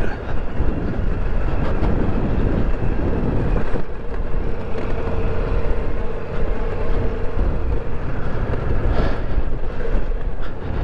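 Ducati Multistrada V4 Rally's 1158 cc V4 engine running at low revs on a rocky downhill trail, with tyres crunching over stones and loose luggage rattling and banging over the bumps, which the rider takes for the panniers. A couple of sharp knocks stand out, one about four seconds in and one near the end.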